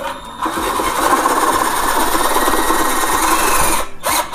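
INGCO CDLI1211 12V cordless drill running under load as it drives a self-drilling screw that cuts its own hole, a steady run of about three and a half seconds. Near the end the run stops and sharp repeated clicks follow: the clutch, set at 13, slipping once the screw is tight.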